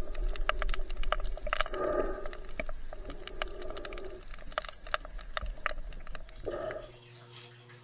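Underwater sound heard through a camera's waterproof housing: a low rumble with sharp clicks several times a second and a few short muffled surges. About seven seconds in it drops to a quieter steady hum.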